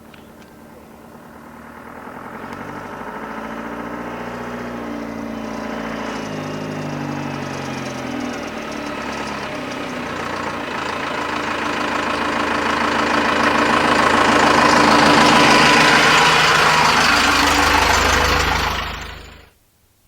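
Cummins 4BT four-cylinder turbodiesel running, heard from inside the cab, its pitch shifting up and down as it grows steadily louder. The sound cuts off suddenly just before the end.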